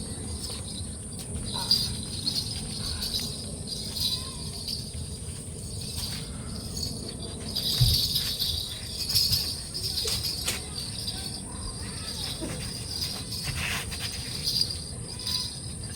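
Crickets chirping steadily, a thin high pulsing trill, with a few faint knocks and rustles.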